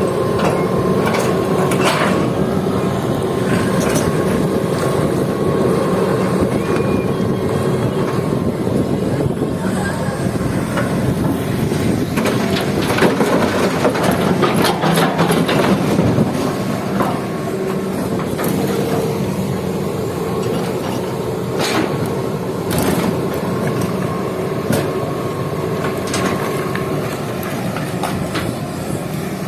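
Heavy diesel engine of a Hitachi excavator working steadily, with scattered clattering knocks of rock dropping into a dump truck's steel bed, thickest around the middle.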